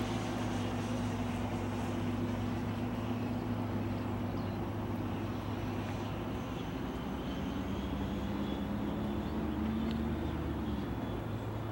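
Turbine of a radio-controlled F-14 Tomcat model jet running in flight: a steady rushing sound with a faint high whine that climbs a little in pitch, over a constant low hum.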